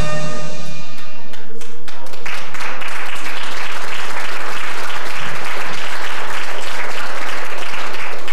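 The last held note of a sung duet fades out, and about two seconds in the congregation breaks into steady applause.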